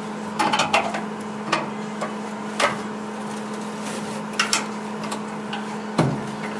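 Scattered metal clicks and knocks as a steel anchor bolt (threaded rod) is handled against a rusty door-hinge screw head, with one sharper knock near the end, over a steady low hum.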